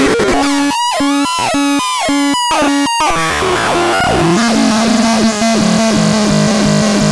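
Ultra Sonic X-2060 playing electronic synthesized sound effects. A buzzy pitched tone stutters on and off with sharp cut-outs for the first three seconds. Then comes a run of quick falling bleeps over a steady low drone, with a hiss joining about four seconds in.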